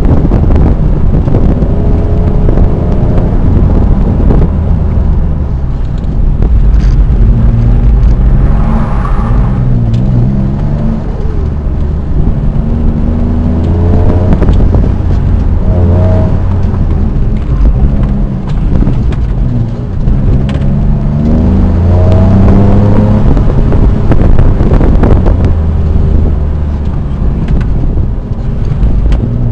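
Twin-turbocharged 2004 Nissan 350Z roadster's 3.5-litre V6 driven hard, its engine note rising again and again and dropping back at each shift or lift, over a heavy low rumble.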